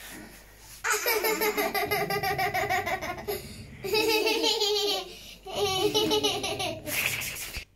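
High-pitched laughter in three long bouts of quick, rhythmic ha-ha pulses, with short breaks between them.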